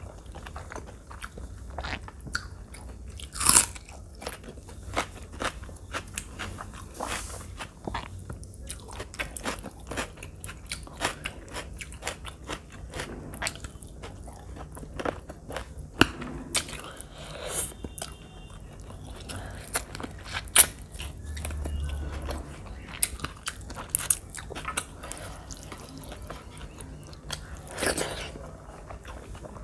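Close-miked mouth sounds of a person eating rice and chicken curry by hand: chewing with a steady run of small wet clicks and several louder ones spread through.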